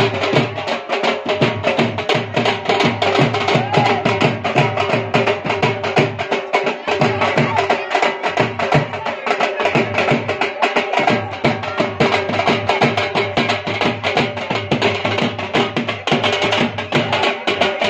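Band drums beaten with sticks in a fast, driving rhythm, with a held tune running over the drumming.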